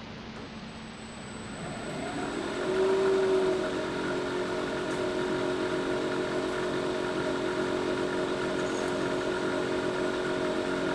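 Wood lathe starting up, winding up to speed over a couple of seconds, then running steadily with a stave drum shell spinning on it.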